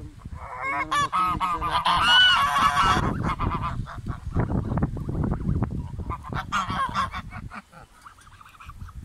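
A flock of domestic geese honking, several calls overlapping, loudest in the first few seconds. This is followed by a run of quick clicks and a few more honks, then a quieter spell near the end.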